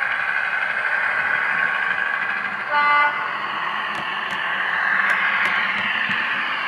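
Diesel multiple unit engine sound from a LokSound DCC sound decoder, played through the small speaker of an OO gauge AEC railcar model as it runs, with a short horn toot about three seconds in.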